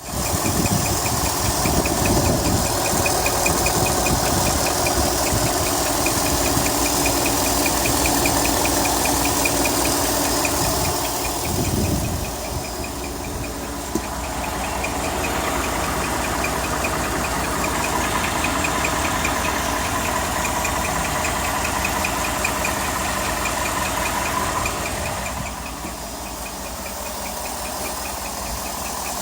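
2018 Ford F-150's 5.0-litre V8 idling, with a rapid, evenly repeating high-pitched squeak/chirp over the engine sound. The chirp comes from the timing chain tensioner, a common issue on 2018 5.0L engines.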